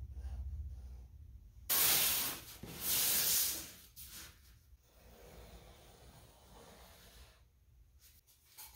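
Work on a large sheet of brown paper on a bench: faint pencil strokes, then two loud rustling scrapes across the paper about two seconds in, then a softer steady rubbing on the paper.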